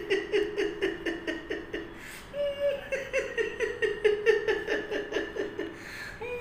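A man laughing in a long run of quick, rhythmic ha-ha pulses, breaking off briefly about two seconds in, then laughing on in a second run.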